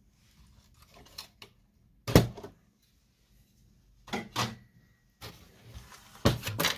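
Plastic parts of a partly stripped inkjet printer knocking and clattering against the chassis and worktable as they are handled. A few light clicks, a sharp knock about two seconds in, another group of knocks a couple of seconds later, then more as a plastic side piece is pulled off near the end.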